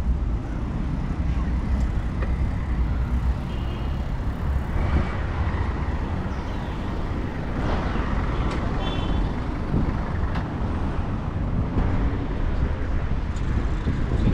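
Wind rumbling over a handlebar-mounted action camera's microphone while a bicycle is ridden, with road traffic passing along the street.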